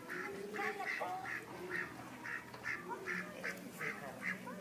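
Ducks quacking: a steady run of short calls, about three a second.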